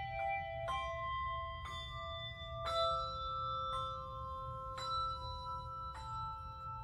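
A handbell ensemble playing a slow melody on a two-octave set of HANAI handbells: chords struck about once a second, each left ringing into the next, over a low steady hum.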